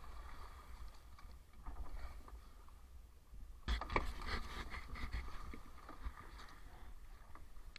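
Sea water splashing and lapping against a small outrigger boat's hull and outrigger floats in a choppy sea, over a steady low rumble. A short burst of knocks and clatter comes about four seconds in.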